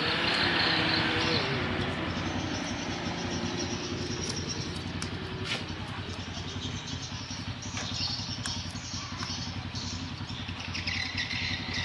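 An engine running steadily at an even speed, with a few light clicks over it.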